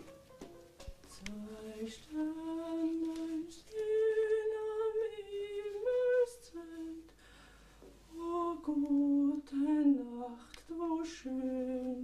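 A woman's voice singing a slow, unaccompanied tune softly, in short phrases of held notes with brief pauses between them.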